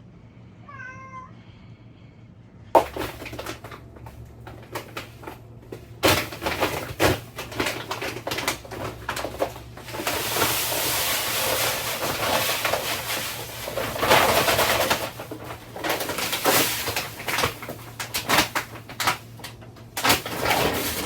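Domestic cat meowing: short calls about a second in, then irregular scuffling noise that thickens for several seconds in the middle.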